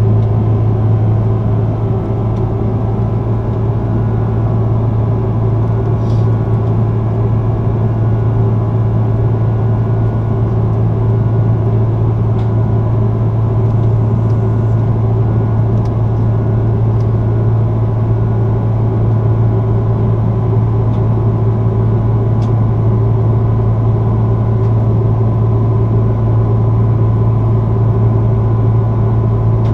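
Steady cabin drone of an Airbus A330-300 in flight, heard at a window seat beside the wing: a loud, low, even hum from its Rolls-Royce Trent 700 engines and the airflow, with a few faint ticks.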